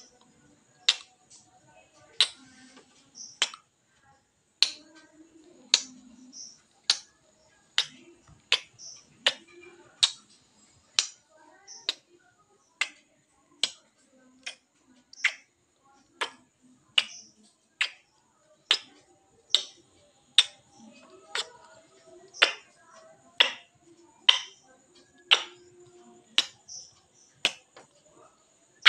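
Lip smacks of repeated kisses on a mirror, sharp and short, coming about once a second.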